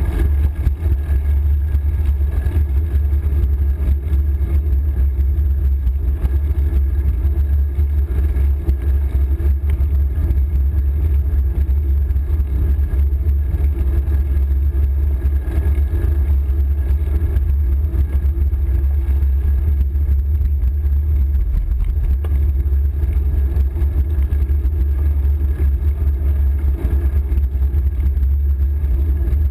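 Steady low rumble of wind buffeting a bike-mounted camera's microphone while riding, mixed with tyre and road noise from the bicycle.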